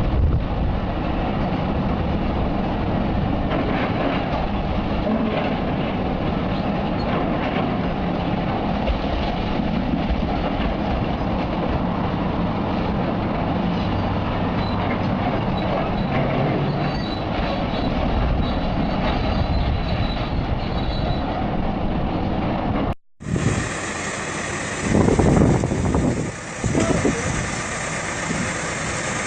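Continuous loud rumble and rattle of heavy machinery. A cut about 23 s in brings a different machine sound with louder surges.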